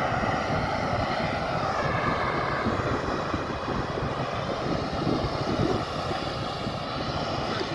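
Jet engines of a twin-engine regional airliner running steadily as it rolls along the runway, with gusty wind rumble on the microphone.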